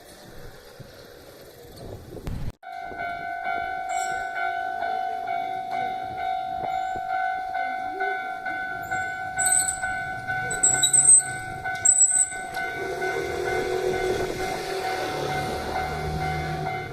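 Japanese level-crossing warning bell ringing steadily from about two and a half seconds in, as a Hankyu electric commuter train approaches and passes. A few short, shrill squeals come around the middle and are the loudest sounds, and the low running rumble of the train builds near the end.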